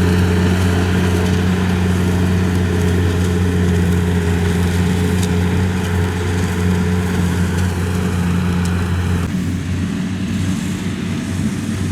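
Rice combine harvester's diesel engine running steadily at high revs; about nine seconds in its note drops and becomes rougher.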